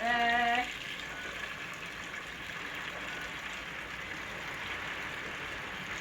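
A brief held vocal tone at the very start, then the steady hiss of rain.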